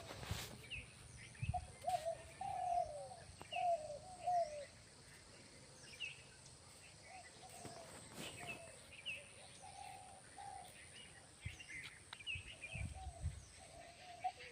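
Birds calling: one bird repeats short phrases of low, fluting notes that arch and fall in pitch, two or three notes at a time, loudest a few seconds in, while other birds chirp thinly and high behind it.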